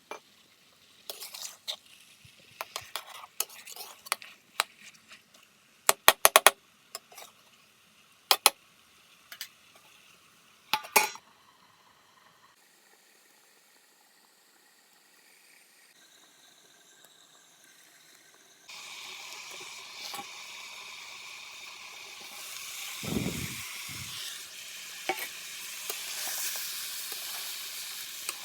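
Metal utensils clinking and knocking sharply against a cooking pot, a few at a time. Then, well past halfway, sizzling starts suddenly as food fries in a pan, a steady hiss that grows louder, with a dull thump partway through.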